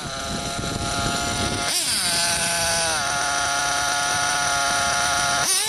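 Modified JL21 big-block nitro engine of an OFNA Hyper 10SC RC short-course truck running at high revs, with a high, buzzing pitch. The pitch holds steady, jumps briefly about two seconds in, then falls and holds lower before climbing sharply again at the end as the throttle opens.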